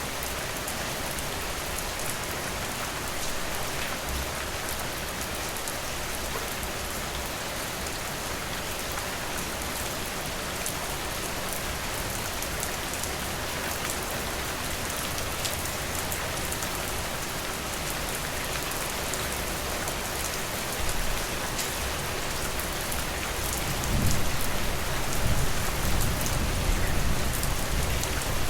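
Steady rain, a dense even hiss with a fine patter of individual drops. A low rumble swells in near the end and becomes the loudest part.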